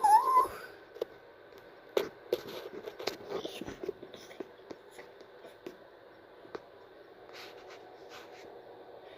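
The end of a cat's rising meow right at the start. Then scattered light taps and scrapes over a faint steady hum.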